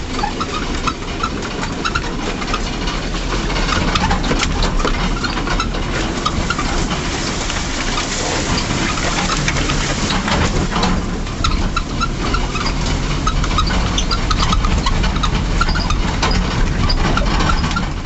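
Land Rover engine running at low speed as the vehicle crawls over a rocky track, a steady low rumble with frequent clicks and knocks through it.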